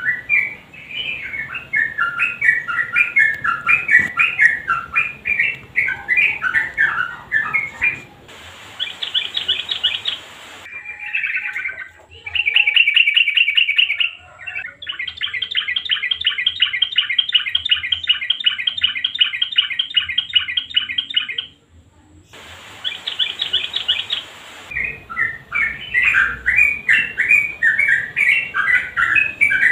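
Yellow-vented bulbul (trucukan) singing loud, jumbled chattering phrases. Midway the song switches, at abrupt splices, to a long rapid trill of evenly repeated notes lasting several seconds. The chattering then resumes near the end.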